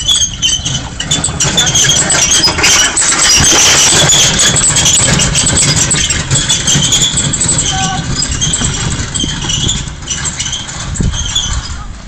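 A team running across grass, pushing a wheeled wooden field gun, with repeated high squeaks. Heavy rumbling wind and handling noise come from a microphone carried at a run.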